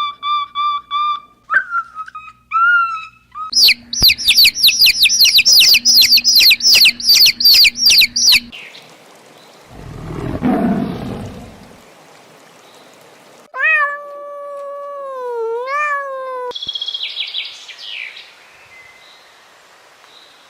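A series of separate animal calls. First come short high calls, then fast repeated bird-like chirping for about five seconds. A short low, rough sound follows, then a long pitched call that wavers and bends near its end, possibly a cat's meow, and a brief burst of high chirps.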